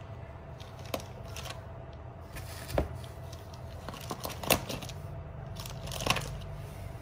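Plastic bags and bubble wrap crinkling as a hand handles packaged phones in a cardboard box, with a few sharp knocks, the loudest about three, four and a half and six seconds in.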